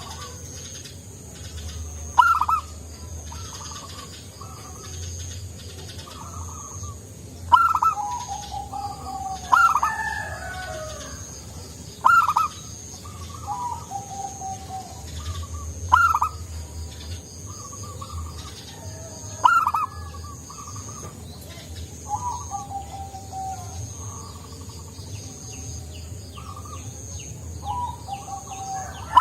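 Zebra dove (perkutut) singing its cooing song: short phrases that each open with a bright, sharp note and trail off in lower coos, repeated every few seconds, about eight times. A faint, steady high pulsing sound runs underneath.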